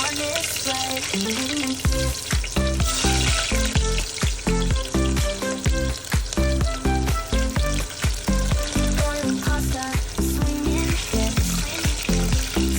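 Food sizzling as it fries in a pan, under background music whose steady bass beat comes in about two seconds in.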